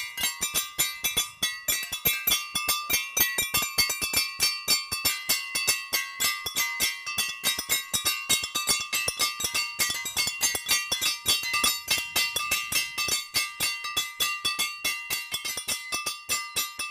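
Background music built on rapid, even metallic strikes over sustained bell-like tones.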